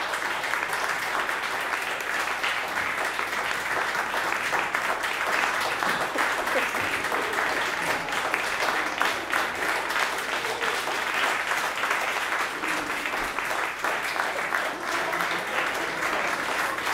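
Audience applauding, a dense crackle of many hands clapping that keeps going without a break.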